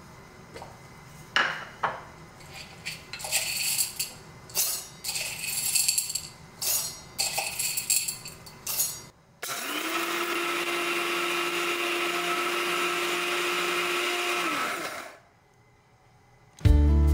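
Coffee beans rattle and click as they are poured into the stainless steel cup of a Russell Hobbs electric blade coffee grinder. The grinder then runs for about five seconds, its whine rising as it spins up and sinking as it stops.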